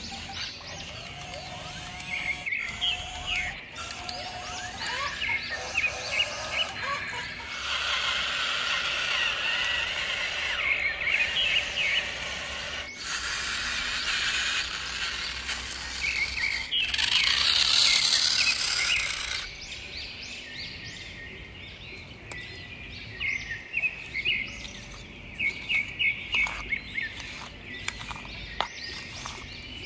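Small birds chirping in short repeated calls over the scrape and pour of sand being dug and loaded into a toy dump truck. A steady rushing noise fills the middle stretch and cuts off sharply about two-thirds of the way through.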